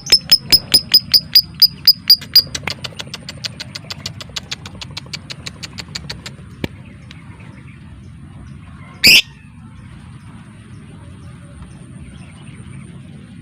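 Lovebird giving the rapid 'typing' (ngetik) call: a run of sharp, evenly spaced chirps, about four a second. The chirps are loud at first, then fade out about six seconds in. One short, loud call follows about nine seconds in, over a low steady background hum.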